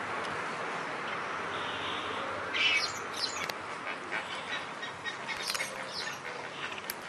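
A flock of flamingos calling: a scatter of short calls starting about two and a half seconds in. Under them is a steady rushing background that eases off as the calls begin.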